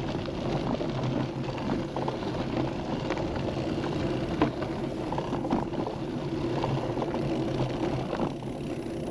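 Bicycle riding along: steady rolling and drivetrain noise with small rattles and clicks.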